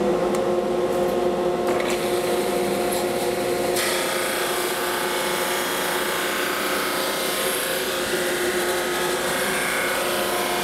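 Ryobi benchtop drum sander running with a dust collector, a steady machine hum. About four seconds in, a walnut board feeds through under the coarse sanding drum and a loud sanding hiss joins the hum.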